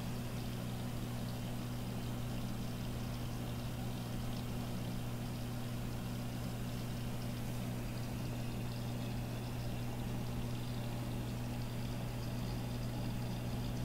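Saltwater aquarium equipment running: the hang-on filters, powerheads and protein skimmer give a steady electrical hum under a constant trickle and wash of moving water.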